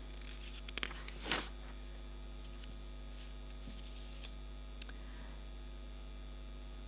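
Steady electrical mains hum from the microphone and sound system, with a few faint clicks about a second in and another near the middle.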